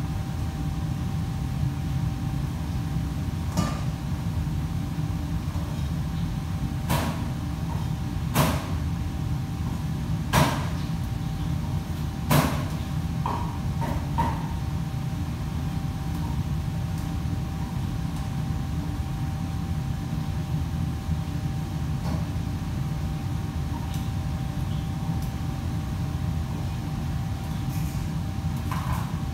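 Kitchen ambience: a steady low hum of running kitchen machinery, with a handful of sharp knocks and clatters from work at the counters, most of them in the first half.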